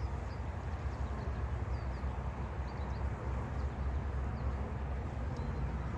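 Steady hum of a mass of agitated honeybees buzzing around an opened package, with a few faint bird chirps above it.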